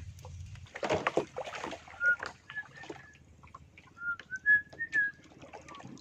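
A run of short, high whistled notes, several in a row and a few slightly rising, in the second half. A brief noisy burst about a second in, and scattered light clicks.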